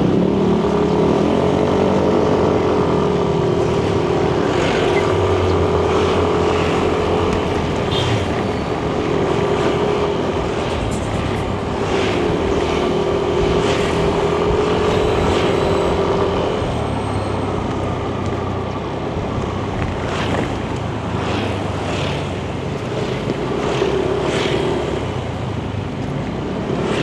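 Yamaha Nmax 155 scooter's single-cylinder engine and CVT drive running under way, heard from the rider's position: a steady droning whine that dips and holds with the throttle, over wind and road noise, with scattered short knocks.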